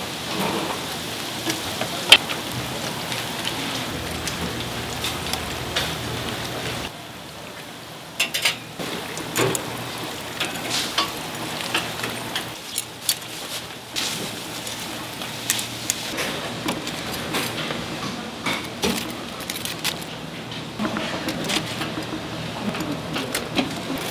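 Battered twigim deep-frying in a stainless fryer of hot oil, a steady sizzling hiss like rain. After about seven seconds the hiss drops back and metal tongs click and clink against the stainless wire draining rack as fried pieces are lifted out, and the sizzle rises again near the end.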